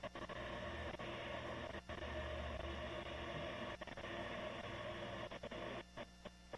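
Steady static hiss from a security camera's low-quality microphone, with a brief dropout near the end.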